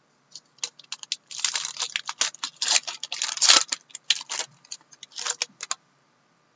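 A trading-card pack handled and opened by hand: a rapid run of clicks, snaps and scrapes, densest in the middle, stopping about a second before the end.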